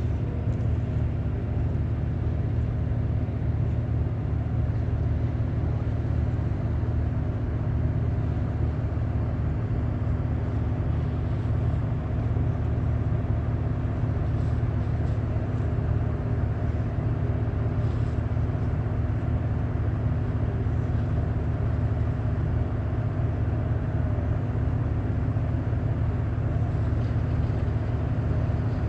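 Boat engine running at a steady pace: an even, low drone.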